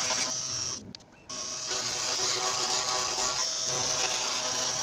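Homemade desktop CNC router running, its spindle whining steadily as the bit cuts grooves into 3 mm plywood. The sound drops out briefly about a second in, then carries on at the same level.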